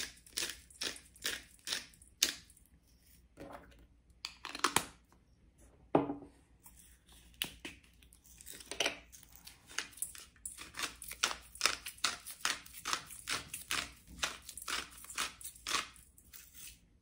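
Hand-twisted salt and pepper grinder grinding: a run of dry crunching clicks at about three a second, with a short pause a few seconds in.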